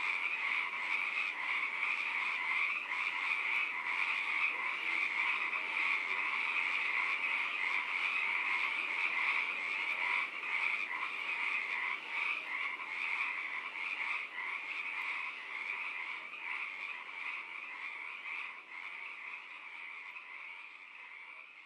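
Dense chorus of frogs croaking, a steady din with no music over it, fading out gradually over the last several seconds.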